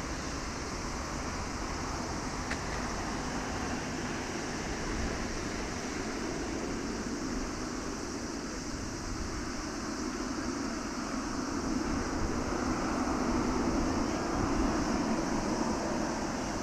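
A Boeing 777-300ER's GE90 turbofan engines running at taxi power as the airliner rolls by: a steady rushing hum with a high hiss over it, growing louder for a few seconds in the second half.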